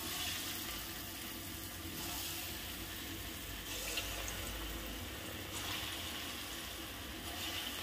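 Lentil-batter pakoras deep-frying in hot oil in a kadhai: a steady sizzle that swells every couple of seconds as more batter goes in, with a small click about four seconds in.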